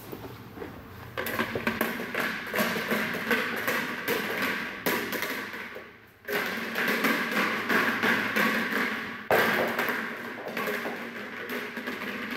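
Repeated thuds and taps of a rubber ball being bounced and thrown on a carpeted floor, with a brief break about six seconds in.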